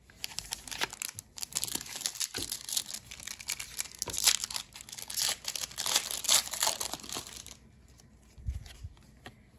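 Pokémon booster pack's foil wrapper being torn open and crinkled by hand: a dense run of crinkling that stops about seven and a half seconds in.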